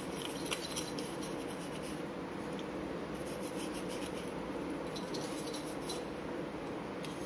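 Toothbrush bristles scrubbing a small silver kumkum box with Pitambari cleaning powder, a faint scratchy rubbing in quick, irregular strokes to remove the black tarnish.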